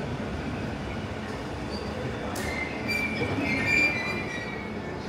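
London Underground tube train running with a steady rumble. A high wheel squeal comes in about halfway through and is loudest just before the four-second mark, then fades.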